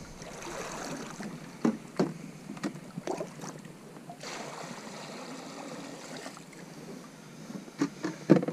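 Kayak on the water: water swishing around the paddle and hull, with a few sharp knocks scattered through, two of them near the end.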